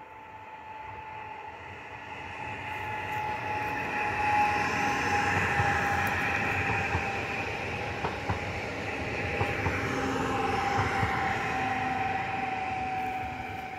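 Koleje Śląskie electric multiple unit passing close by: a steady whine that slides slightly down in pitch, over the rushing noise of wheels on rails, with a few clicks about halfway through. It grows louder to about four seconds in and fades near the end.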